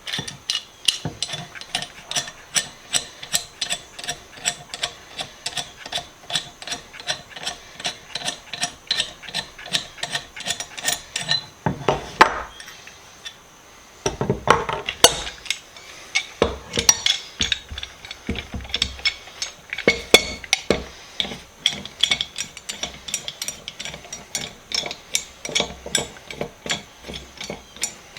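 Ratchet-like metal clicking from hand tools taking pipe wrenches apart, about two to three clicks a second, with a short pause around the middle.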